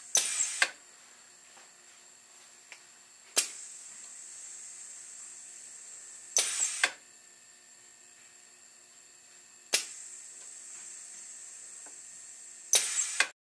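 Pneumatic air cylinder driving a rubber ram onto a 1500 ml manual resuscitator bag, cycling about every three seconds. Each stroke alternates between a single sharp clack and a half-second burst of clicks with rushing air, and a faint steady air hiss runs in between.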